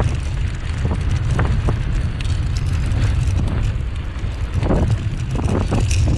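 Steady low rumble of wind buffeting the microphone, mixed with the noise of a dog-drawn dryland rig rolling along the trail.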